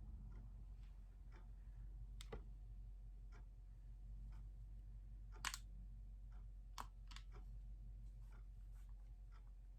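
Faint, roughly regular ticking over a low steady hum, with a few sharper clicks scattered through, the loudest about halfway.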